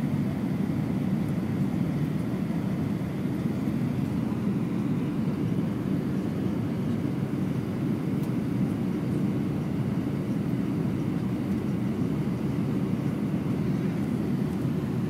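Steady low cabin rumble inside an Airbus A320-200 on its landing approach: engine and airflow noise heard through the fuselage, unchanging, with no bumps or thuds.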